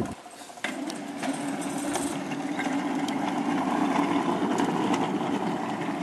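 A steady mechanical hum with a low held tone, beginning after a brief break about half a second in.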